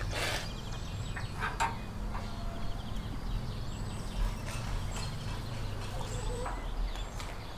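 Outdoor ambience: a steady low hum with faint, short bird chirps, and a few brief clicks and knocks from handling metal skewers, the loudest right at the start.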